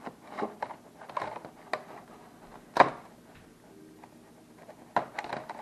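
Gorilla tape being pressed and smoothed onto a hard plastic foosball ball-return track: a series of short crackles and taps as the plastic is handled, the loudest a sharp knock about three seconds in.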